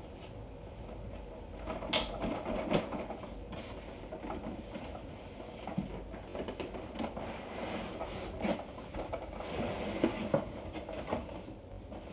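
Handling of a large cardboard toy box with a clear plastic window: scattered taps, knocks and rubbing as hands turn it over and slide across it.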